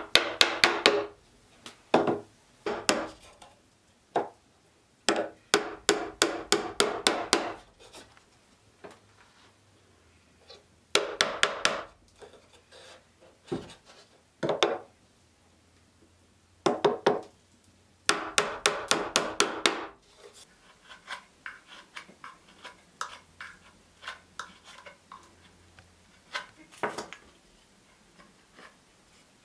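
Small hammer tapping on the pine top boards of a wooden box bellows, in quick runs of light taps, several a second, with pauses between the runs. After about twenty seconds there are only fainter scattered ticks, and one louder knock near the end.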